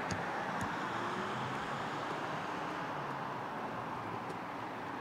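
Car with a 1.9 TDI diesel engine driving away, its engine and road noise slowly fading. The TDI is reckoned to be a tuned one.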